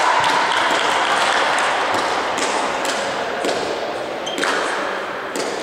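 Echoing indoor volleyball-hall noise that slowly fades, with a few sharp thuds of a ball hitting the wooden floor and a brief high squeak about four seconds in.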